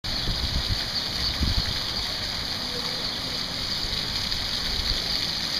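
Ground-level splash-pad fountain jets spraying up and splashing back onto wet pavement, a steady hiss of falling water, with some low rumbling in the first second and a half.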